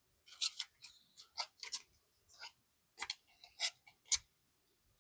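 Paper banknotes being handled: a scatter of light, brief paper rustles and taps.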